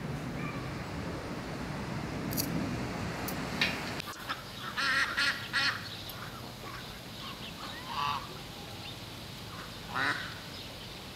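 Waterfowl calling: a quick run of three calls, then single calls a few seconds apart. Before the calls, a low, steady background noise.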